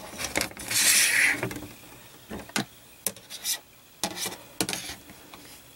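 Plastic model kit sprue trees being handled and set down: a scraping rustle about a second in, then a string of light plastic clicks and taps.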